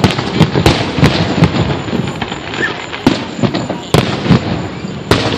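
Aerial fireworks shells bursting overhead, a string of sharp booms and crackles coming fast in the first second and a half, then louder single bangs about three, four and five seconds in.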